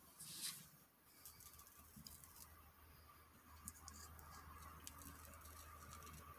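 Near silence: faint rustling and scattered small clicks over a low steady hum, with a brief hiss about half a second in.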